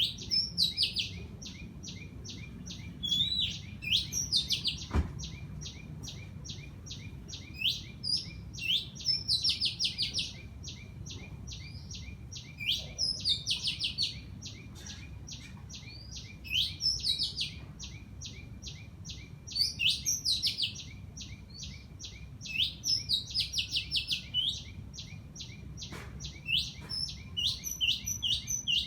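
Birds calling: a steady fast series of high chirps, about five a second, with louder bouts of quick, sharp, high notes every few seconds.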